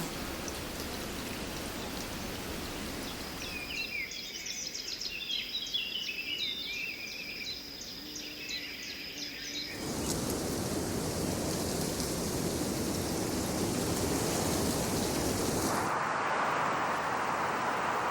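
Forest ambience recordings cut one after another: a steady hiss of wind in foliage, then, from about four seconds in, birds chirping over a steady high tone for about six seconds. After a sudden cut the foliage noise returns, changing near the end to a different, mid-pitched hiss.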